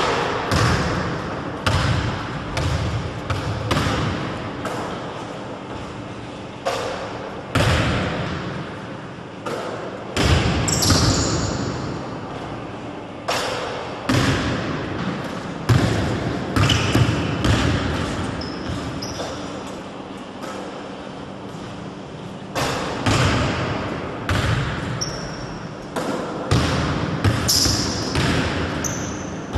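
Basketball bouncing on a hardwood gym floor in irregular runs of dribbles and single bounces, each knock trailing a hall echo. A few short high squeaks of shoes on the court come in between.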